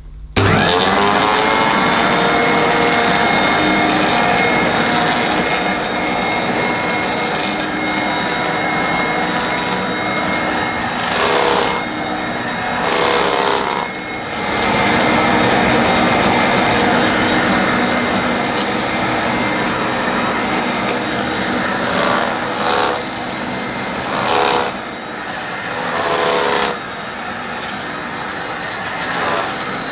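Vorwerk VK121 upright vacuum cleaner switched on about half a second in, its motor rising in pitch as it spins up and then settling into a steady whine as it runs over carpet with the ET340 powered brush head. Several brief louder surges break the running. The ET340 head does not sound healthy, and the owner puts this down to brushes that need replacing.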